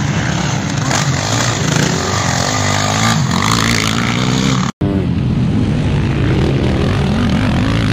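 Racing quad (ATV) engines revving hard as the quads accelerate and slide through corners on a dirt motocross track, their pitch rising and falling with the throttle. The sound drops out for an instant just under five seconds in, then the engines go on.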